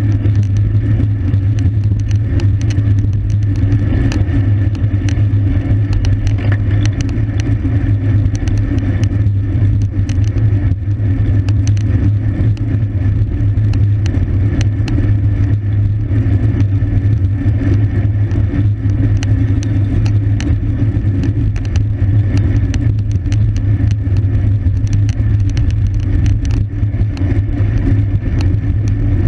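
Steady wind rush and low rumble on the microphone of a camera riding on a racing bicycle at speed. Scattered sharp clicks and rattles run through it.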